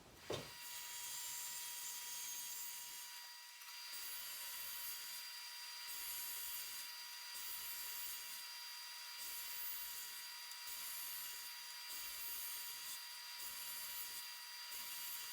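Table saw running and ripping 3/4 inch plywood into strips: a steady, thin high hiss with a faint whine over it, swelling and easing a little every second or so.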